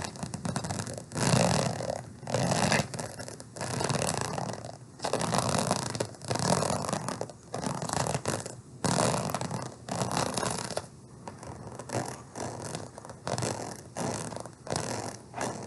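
A purse being handled close to the microphone: a run of scratching and rubbing strokes on its material, each under a second long with short gaps between them.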